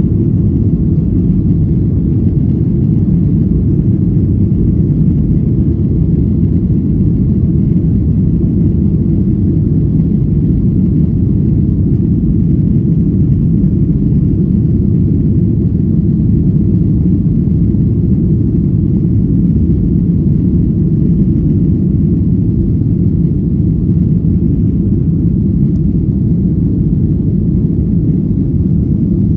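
Steady low rumble of a Boeing airliner's jet engines and rushing air, heard inside the passenger cabin during the climb just after take-off.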